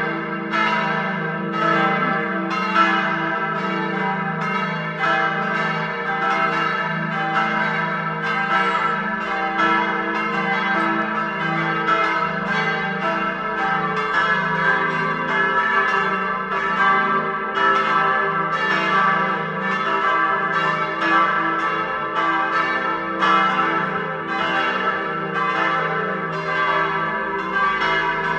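Full peal of four swinging church bells tuned e' g' a' c'', their strikes overlapping in a continuous, irregular stream over a steady ringing hum.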